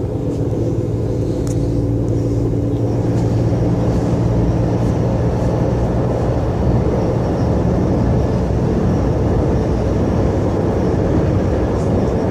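Diesel railcar running, heard from inside the passenger car: a steady engine hum under an even low rumble of the ride. The hum fades into the rumble about two-thirds of the way through.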